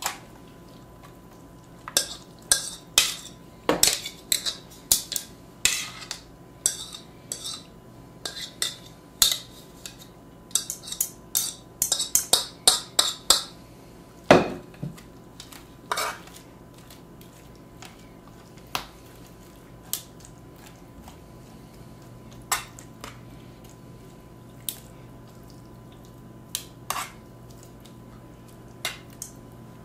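A kitchen utensil scraping and clinking against a ceramic mixing bowl and a metal baking pan as a salmon loaf mixture is scraped out into the pan. The clicks come thick and fast through the first half, with one louder knock about halfway, then thin out to occasional taps as the mixture is worked in the pan.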